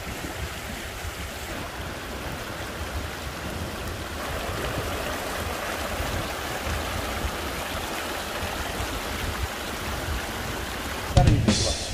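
A shallow mountain stream running over rocks: a steady rushing of water. Just over 11 s in, a short, louder noise breaks in.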